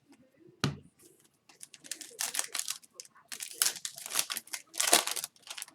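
Foil hockey card pack wrapper crinkling as it is handled, in a string of crackly bursts. There is a single knock about half a second in.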